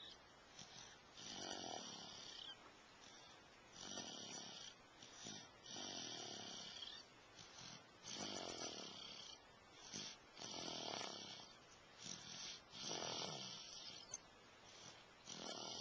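Snoring: slow, regular snores, about seven of them, one roughly every two seconds.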